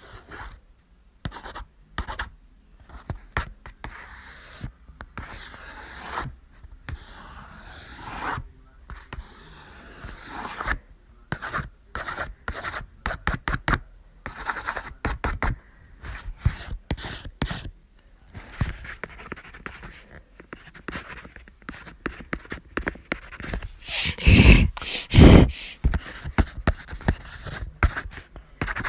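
Pen writing on paper, scratching in irregular strokes broken by many sharp clicks and taps. Near the end come two louder bursts.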